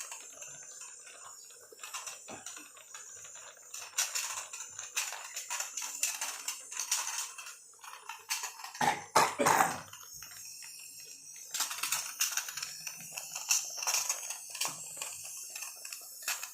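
Homemade steam inhaler hissing steadily, with many small clicks and pops. A brief vocal sound about nine seconds in.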